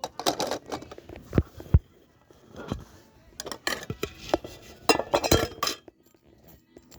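Metal fidget spinners clinking and rattling as they are handled, in irregular clusters of clicks with a couple of sharper knocks a little under two seconds in.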